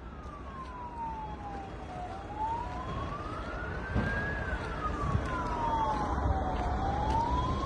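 Emergency vehicle siren in a slow wail, its pitch falling and rising about every two seconds, growing louder as it approaches, over low traffic rumble.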